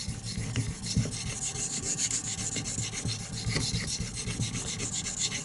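VG10 steel blade of a Fallkniven F1 knife being stroked across a whetstone, a continuous scraping rasp of quick repeated strokes. The handle is tilted to carry the edge's belly across the stone.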